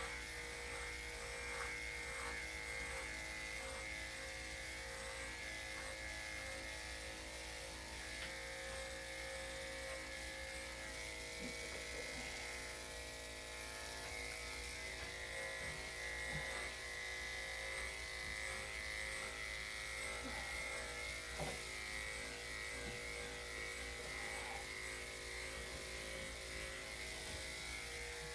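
Electric dog grooming clippers running steadily with a constant buzzing hum.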